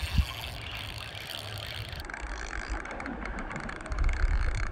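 Spinning fishing reel being cranked to bring in a hooked fish, a fast ratcheting whir from its gears, with wind rumbling on the microphone near the end.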